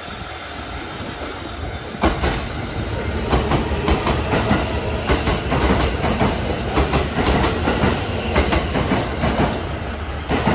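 Shinano Railway SR1-series electric train running past close by, its wheels clattering rapidly over rail joints over a low rumble; the clatter starts about two seconds in.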